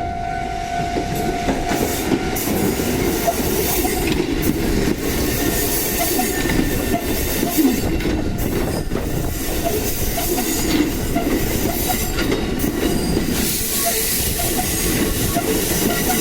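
Kotoden 1070 series four-car electric train running into the station over the level crossing, its wheels rumbling and clicking over rail joints. A steady ringing tone, typical of the crossing alarm, stops about a second and a half in.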